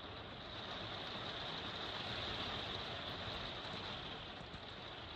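Steady rain falling on a motorhome, heard from inside as an even hiss.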